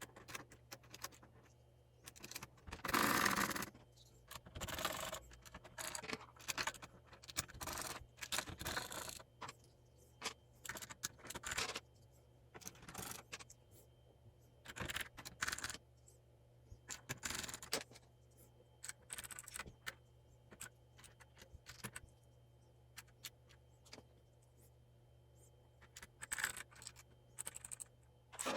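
Plastic keycaps being handled and pressed back onto the switches of an ABKO Hacker K600 RGB mechanical keyboard: irregular clicks and light clatter, with a louder scraping rustle about three seconds in.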